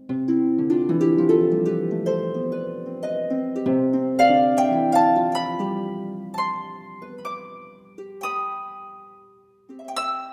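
Background music of gently plucked harp notes, a dense flowing run of notes that thins to single ringing notes and dies away near the end before new notes begin.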